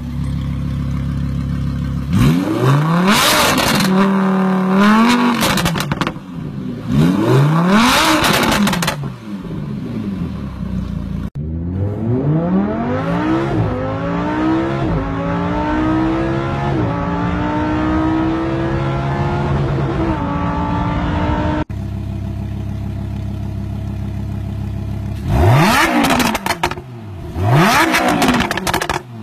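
Lamborghini Huracán's V10 engine idling and revved hard twice, each rev rising sharply and falling back. Then, heard from inside the cabin, it pulls hard with the engine pitch climbing, dropping at a gear change and climbing again. Near the end it idles again and is blipped twice more.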